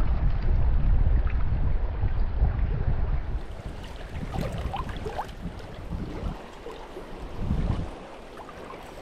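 Wind rumbling on the microphone over the rush of river water, heaviest for the first few seconds and then easing.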